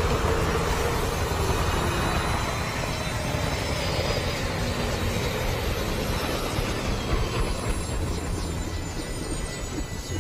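Helicopter running on the ground with its rotor turning: a steady rushing noise over a low rumble, with the blade beats becoming more distinct near the end.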